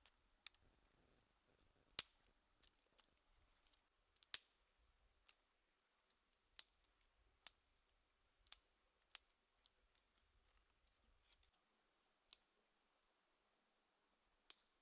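Dry twigs snapping by hand, about a dozen short, sharp cracks at uneven intervals over near silence.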